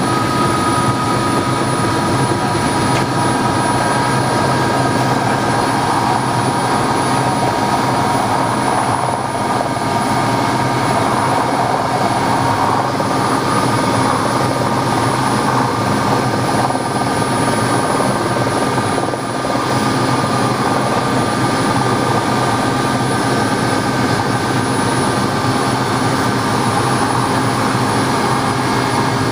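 Steady helicopter noise heard from inside a helicopter cabin on the pad: a constant turbine whine with high steady tones over rotor and engine noise, with a second helicopter landing close by.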